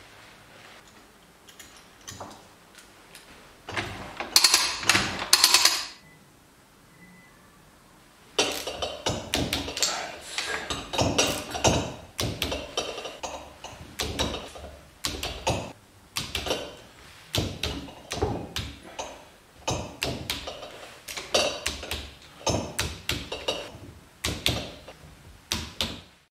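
Hand-tool work on a scooter engine: a loud rustle and knocks early on, then from about eight seconds in a ratchet wrench clicks in quick runs as a bolt is tightened, with metal taps between strokes.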